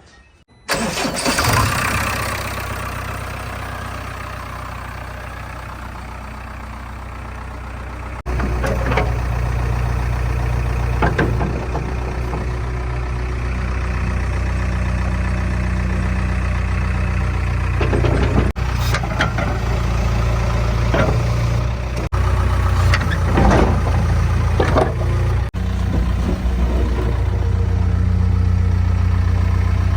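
Diesel engines of heavy machinery running steadily at a low, even hum, with a few short clanks. The sound cuts in suddenly about a second in and jumps several times.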